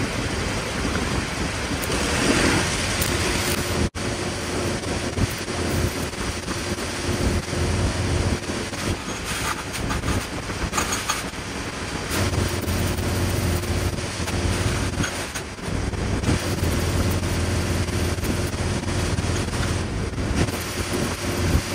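Stick welding on a steel frame: the arc crackles in stretches over the steady drone of a running engine, which is stronger in several stretches.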